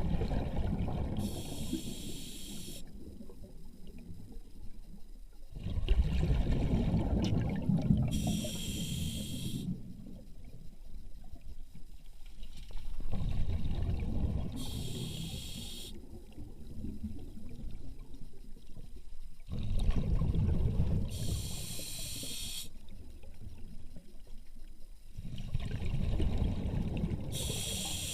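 Water and air gurgling and sputtering through a pump's pipe in repeated surges, about every six to seven seconds. Each surge is a low gurgle ending in a short hiss.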